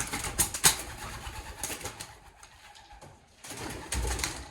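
Pigeons cooing in a derelict shed, with two sharp clicks about half a second in and a brief low rumble near the end.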